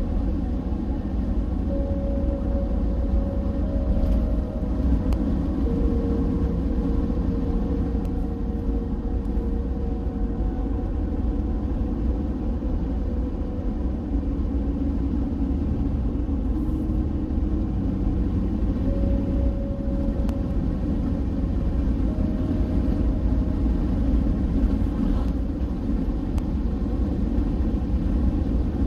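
Car driving: a steady low engine and road-noise drone, with a faint hum that shifts pitch a few times.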